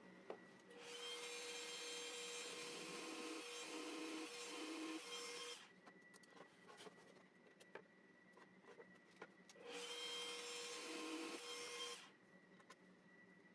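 Electric drill running twice, once for about five seconds and then for about two seconds, drilling screw holes through small aluminum parts glued to MDF. Light clicks and taps come between the two runs.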